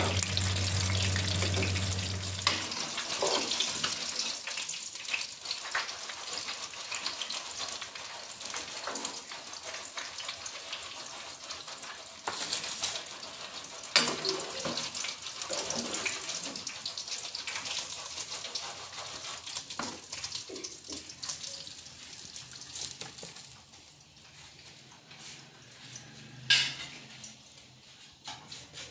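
Hot oil sizzling steadily as gram-flour-battered green chillies deep-fry in a wok, with a few sharp clicks of the metal slotted skimmer against the pan. A low hum cuts off about two seconds in, and the sizzle grows fainter toward the end.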